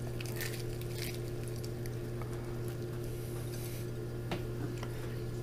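Crumbled bacon being sprinkled by hand onto a soft tortilla taco: a few faint, soft taps and patters, over a steady low hum.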